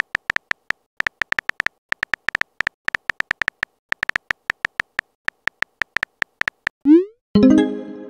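Phone keyboard tapping sound effect: short, high clicks about six a second as a text message is typed. About seven seconds in, a rising swoosh and then a short pitched tone as the message is sent.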